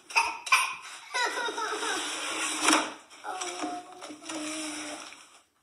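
A woman talking, with a couple of sharp clicks or knocks near the start and another about halfway through.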